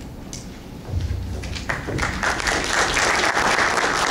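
Audience applauding, building up about two seconds in and holding steady as a dense patter of many hands clapping.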